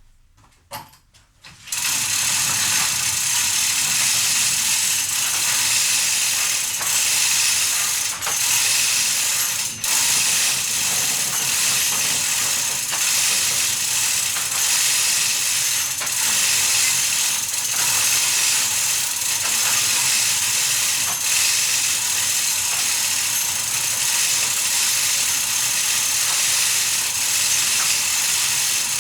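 Ratchet winch of a ceiling storage hoist being cranked, its pawl clicking rapidly and steadily as the load goes up; it starts about two seconds in.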